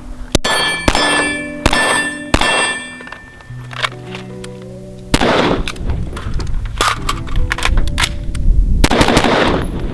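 Pistol shots, four of them in the first two and a half seconds, each followed by the ring of a struck steel target. After a pause with music underneath, louder rifle shots come in a quick cluster near the end.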